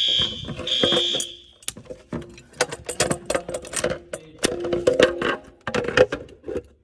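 Fire alarm horn sounding two short high-pitched blasts, as a device is tripped during fire alarm system testing, followed by a run of clicks and knocks.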